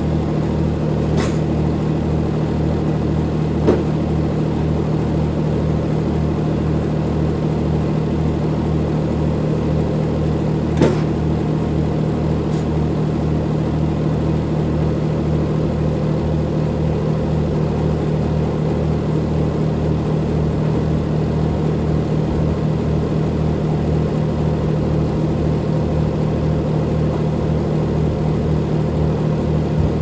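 Tractor engine running at a steady speed to drive a circular sawmill blade, with an even, pulsing low drone. Two brief sharp knocks stand out, about 4 and 11 seconds in.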